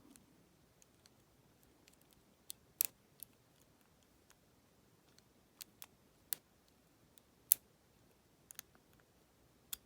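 Irregular small metal clicks of a lock pick working the pin stack inside a Federal PL90PE padlock, as each pin is jiggle-tested, with several quiet seconds between some of the clicks.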